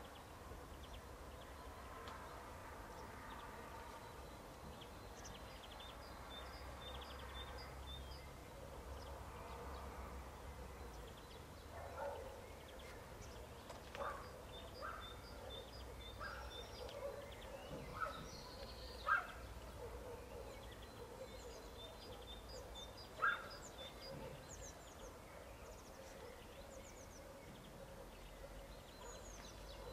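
Faint rural ambience with birds chirping and calling. A scattering of sharp knocks and snaps comes through the middle stretch, the loudest two a few seconds apart.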